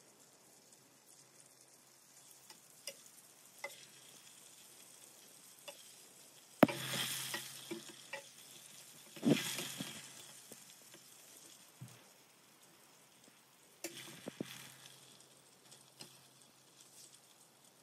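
Chicken pieces deep-frying in oil in a stainless steel pot, sizzling, while a metal slotted spoon stirs and turns them with small clinks against the pot. A sharp knock comes about a third of the way in. The sizzling swells loudly three times: right after the knock, just past halfway, and near three quarters of the way through.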